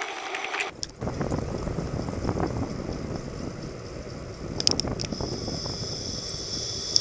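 Wind buffeting and tyre noise on a bicycle-mounted camera's microphone while riding along a road, with a few sharp clicks near the middle. A thin, steady high-pitched tone comes in about five seconds in.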